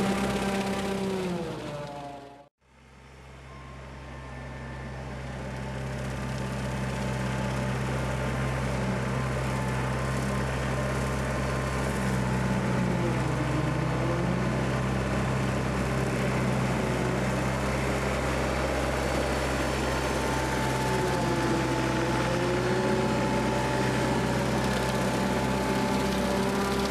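Kubota tractor's diesel engine running steadily under load while pulling a rotary cutter through tall grass. A higher tone sags and recovers twice. The sound cuts out sharply about two and a half seconds in and fades back up.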